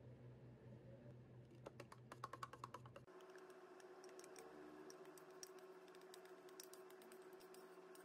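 Faint quick run of small clicks and taps, then thick sauce pouring from a stainless steel pitcher into a plastic squeeze bottle, with soft scattered plops and ticks.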